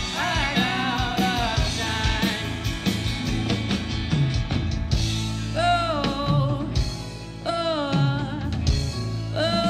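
Rock band playing live: a male lead vocal sings sliding phrases over bass guitar, guitar and a drum kit.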